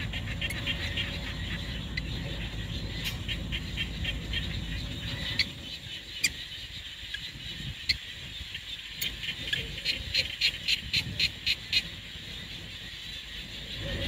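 Rhythmic animal chirping, about four or five high chirps a second, over a low rumble that fades about six seconds in. Near the end a run of sharper, louder chirps comes about three a second.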